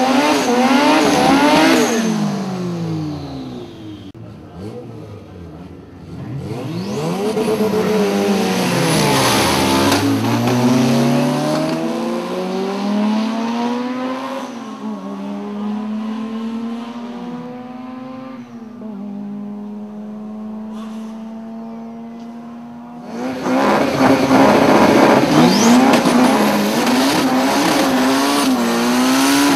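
A turbocharged Honda Civic engine revs high while the tires spin in a smoky burnout. It then launches and pulls through several gear changes as it fades away down the strip, dropping to a quieter steady engine note. About 23 seconds in another loud burnout starts, the revs wavering up and down at high pitch.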